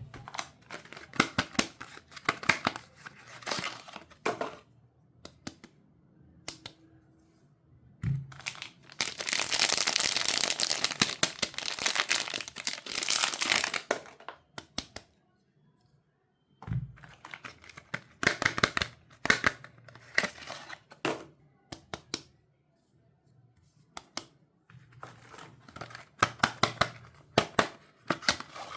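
Soap wrappers being crinkled and torn open by hand, in bursts of crackling with quiet gaps between. There is a long, loud stretch of tearing and crinkling in the middle, and two soft thumps.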